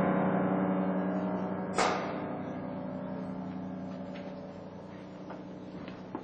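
A loud gong-like metallic stroke rings out and slowly dies away over several seconds. A second, sharper and brighter metallic hit comes about two seconds in. It works as a stage sound cue for the fatal thrust of the duel.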